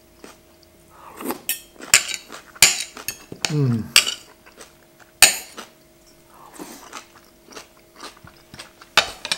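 Knife and fork scraping and clinking on a plate as roast chicken is cut, with mouth-eating sounds of chewing in between. A short falling "mm" from the eater comes about three and a half seconds in.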